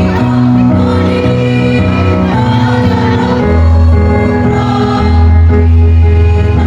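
Choir singing in sustained held chords with musical accompaniment.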